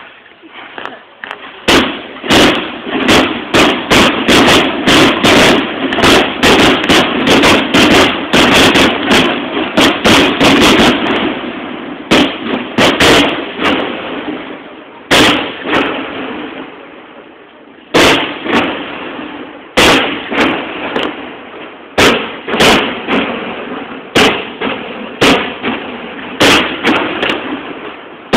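Daytime fireworks bursting overhead: a rapid barrage of bangs for about the first ten seconds, then single bangs every second or two, each trailing off in echo.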